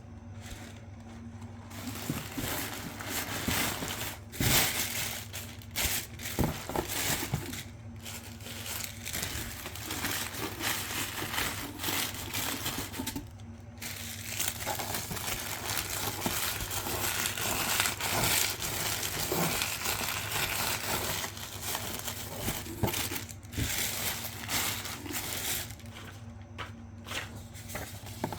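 Crinkly packaging being handled: irregular crinkling, rustling and crunching with occasional sharp clicks, over a steady low hum.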